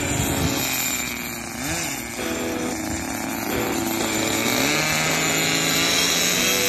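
Kyosho RC buggy's small two-stroke glow (nitro) engine running and revving, its pitch rising and falling with the throttle, then holding a steady high note for the last couple of seconds.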